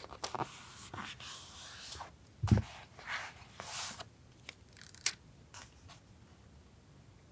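Paper and stationery being handled for a journal collage: rustling and light clicks, a soft thump on the desk about two and a half seconds in, and a sharp click around five seconds in, after which the handling goes quiet.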